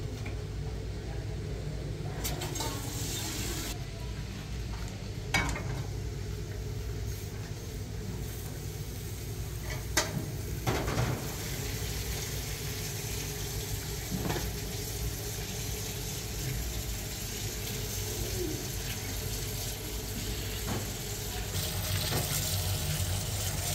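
Kitchen tap water running into a plastic colander as raw chicken pieces are rinsed by hand, with a few sharp knocks and clinks of dishes. A steady low hum runs underneath.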